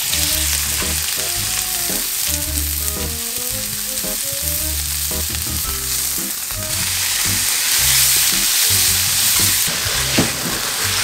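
Ingredients for jjamppong sizzling as they are stir-fried in a hot pan, a steady hiss that grows louder about seven seconds in and eases near the end. Soft background music plays under it.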